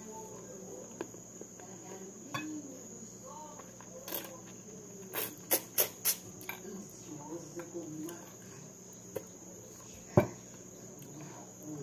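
Steady high chirring of crickets, with eating sounds over it: a run of sharp clicks and clinks of a spoon against a metal bowl around the middle, and one louder knock near the end.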